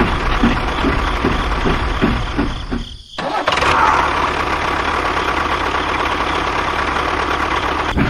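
Tractor engine sound: a rhythmic chugging for about three seconds, a brief cut-out, then a steady engine drone.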